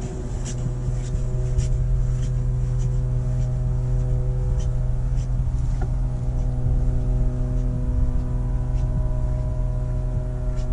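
An engine running steadily at a high, even speed, with a few faint clicks on top.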